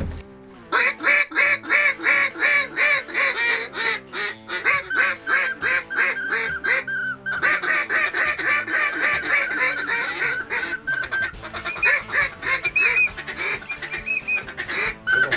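Rapid, unbroken series of duck quacks, about six a second, starting abruptly and running on with background music underneath.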